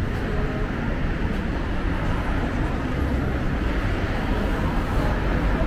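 Steady city street noise with a deep traffic rumble.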